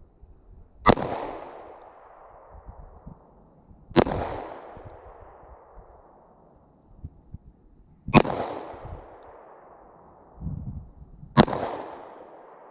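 Four pistol shots fired slowly, a few seconds apart, each a sharp crack followed by a rolling echo that dies away over about a second.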